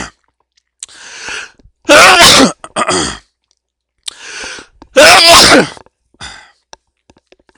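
A person sneezing twice, about three seconds apart. Each loud sneeze is preceded by a quick in-breath and followed by a short, softer sound.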